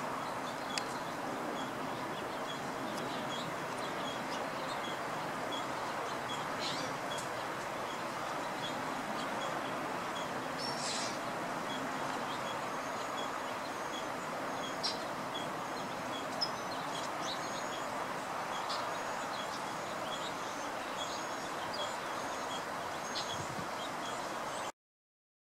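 Outdoor ambience: a steady, even background hiss with faint, short, high bird chirps scattered through it and a soft regular ticking, about two a second, in the first third. The sound cuts off abruptly near the end.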